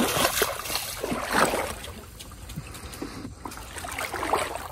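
Water splashing and sloshing as hands and legs move through shallow river water, groping for prawns: a run of splashes in the first two seconds, then quieter, with a few smaller splashes near the end.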